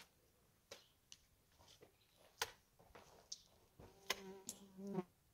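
A flying insect buzzes close by for about a second near the end, a steady low hum. Faint, scattered clicks and taps come from the stone-and-mud wall work throughout.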